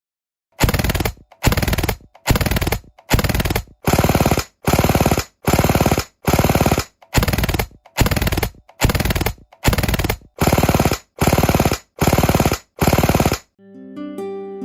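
Toy-Tec P90 gas airsoft gun firing full-auto in short bursts: about seventeen bursts of roughly half a second each, one every three-quarters of a second. Ukulele-like music comes in near the end.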